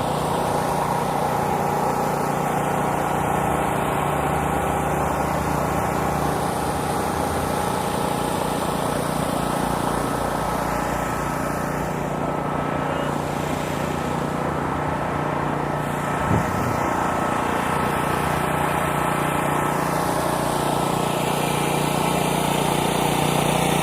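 Busy city street ambience: steady traffic noise with the murmur of a crowd, and a single brief thump about 16 seconds in.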